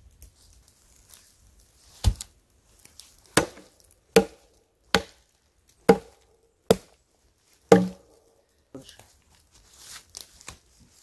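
Sharp blows on old wooden boards and logs: about seven chopping strikes roughly a second apart, starting about two seconds in, then a few lighter knocks near the end.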